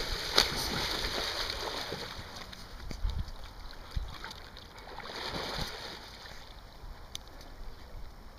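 A dog splashing as it wades through shallow river water and then swims, water sloshing around its legs and body. The splashing is loudest in the first two seconds and again about five seconds in, then fades toward the end.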